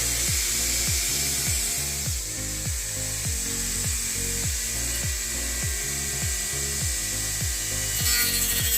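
Cordless 36-volt electric grass cutter running with a steady high whine and hiss, louder near the end. Background music with a steady beat about twice a second plays over it.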